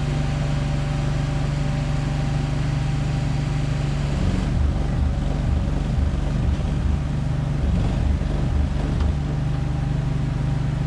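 A steady low engine hum, like an idling vehicle, with an uneven low rumble from about four to nine seconds in.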